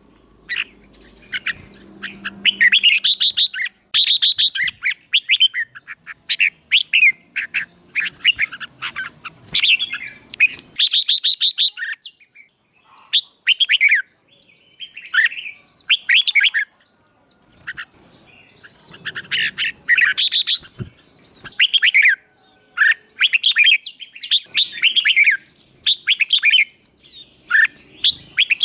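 Songbird singing in a fast, sustained bout of short chirps and sweeping whistled phrases, one after another with only brief pauses: the fired-up, competitive song used to train and stir up newly caught birds.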